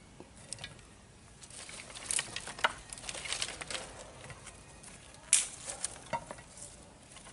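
Dry sticks and twigs being laid and stacked by hand, rustling and clicking against each other in scattered crackles, with a sharper snap about five seconds in.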